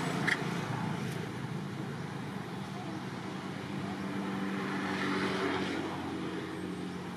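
A motor vehicle's engine running nearby, a steady hum that grows louder around the middle and then eases off, with a brief click near the start.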